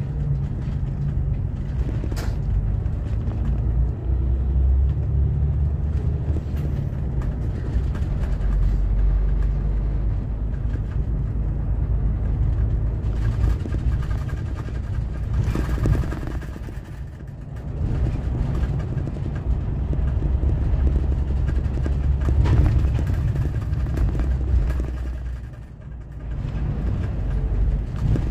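Steady low rumble of a highway coach's diesel engine and tyres, heard from inside the cabin while the coach drives through town traffic. The rumble drops away briefly twice, about two-thirds of the way through and again near the end.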